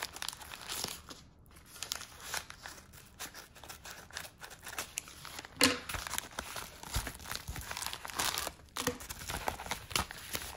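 Padded kraft paper mailer crinkling and rustling as it is handled and emptied, in short irregular crackles, the loudest about halfway through.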